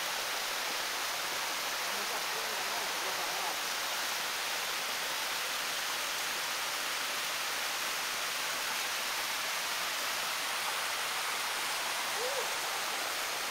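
Small waterfall running down a rock face and splashing into a pool, a steady rushing of water.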